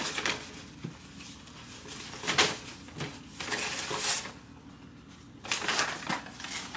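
Sounds of eating a spicy, crispy fried chicken sandwich: several short, hissy bursts of chewing and breathing, and a paper napkin rustling near the end.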